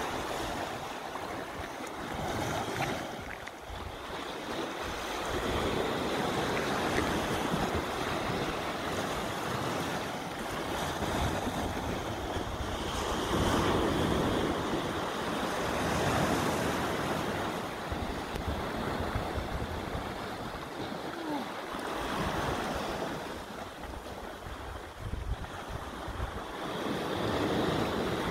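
Sea waves washing against shoreline rocks, the wash swelling and easing every few seconds, with wind buffeting the microphone.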